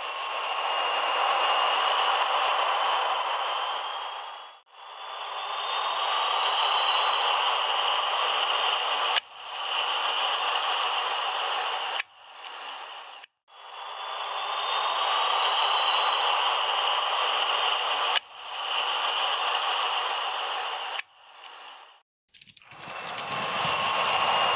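Model trains running on the track: the small electric motor whines while the wheels clatter over the rails, and the whine rises slowly in pitch. The sound drops out several times for a moment.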